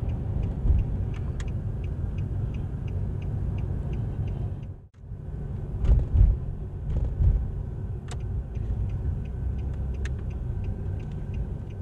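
Steady low road rumble of a moving car, heard from inside the cabin, with a faint, regular ticking above it. The sound cuts out briefly just before halfway through.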